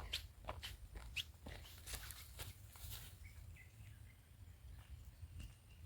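Footsteps on a forest trail, a step about every half second, fading out about three seconds in. After that come a few faint bird chirps.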